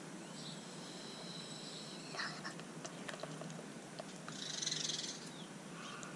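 Hands kneading and stretching a large batch of glittery, bead-filled slime, with soft squishing and a brief crackling hiss about two-thirds of the way in.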